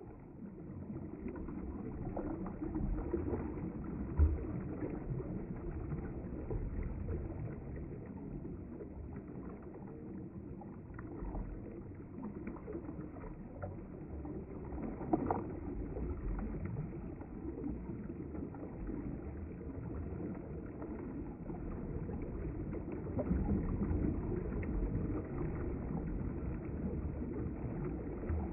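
River water running: a steady rushing noise, with a sharp knock about four seconds in and another about fifteen seconds in.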